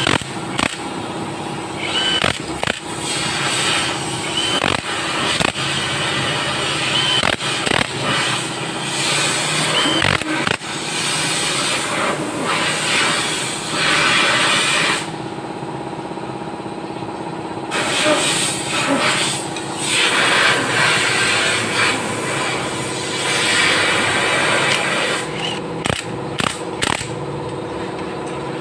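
Metal hand tools clicking, knocking and scraping on a Suzuki GD110 motorcycle engine's crankcase as it is taken apart, over a steady background hum.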